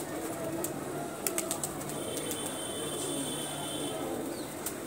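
Domestic pigeons cooing in repeated low calls, with a short run of sharp clicks about a second in.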